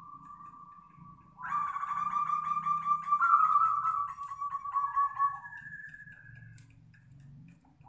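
Birds calling: a steady whistled note, then a loud pulsing call of about four seconds that steps up in pitch partway through, then a higher held note.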